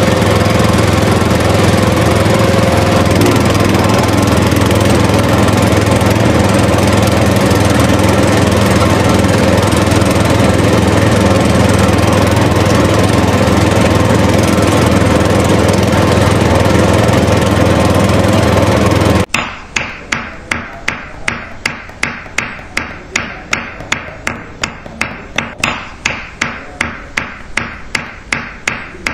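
Tractor engine sound running steadily for most of the stretch, then cutting off suddenly. It gives way to quick, evenly spaced hammer taps, about three a second, as small wooden posts are set into a miniature block wall.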